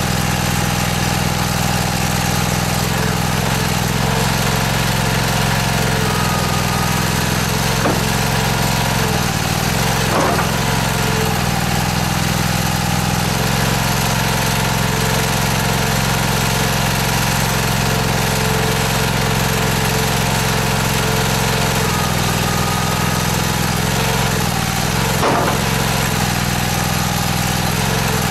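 Small engine driving the hydraulic pump of an M-50 stone splitter, running steadily, with its note shifting slightly a couple of times. Two brief knocks come through it, about ten seconds in and near the end.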